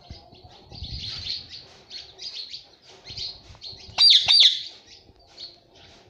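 Rose-ringed (Indian ringneck) parakeet chattering in a run of short, scratchy chirps, with two loud, sharp calls in quick succession about four seconds in.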